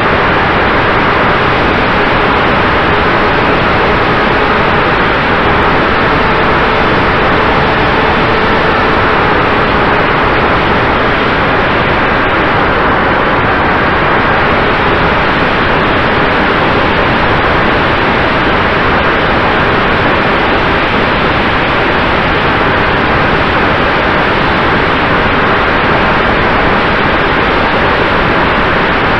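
Steady, loud hiss with a few faint steady tones under it, holding one level throughout.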